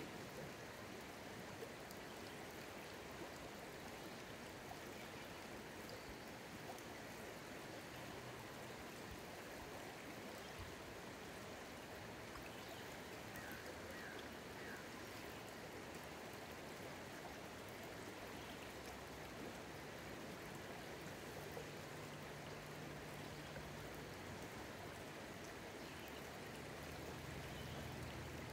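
Shallow river rushing steadily over a pebbly riffle, an even wash of water. A bird chirps faintly a few times about halfway through, and a low hum joins in near the end.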